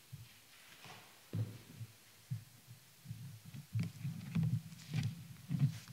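Irregular, muffled low thumps and knocks, a few in the first half and coming more often, about two a second, in the second half.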